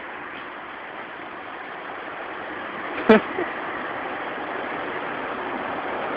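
Street traffic noise from cars on the road, a steady rush that grows louder toward the end. About three seconds in, a brief, sharp, very loud sound cuts through once, with a smaller one just after.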